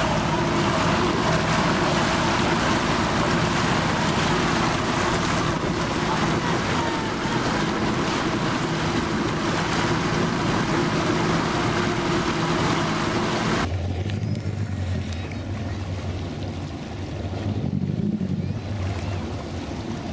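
Motorboat engine running at speed with water rushing past the hull. About fourteen seconds in, the sound changes abruptly to a lower, quieter engine hum with water lapping and wind on the microphone.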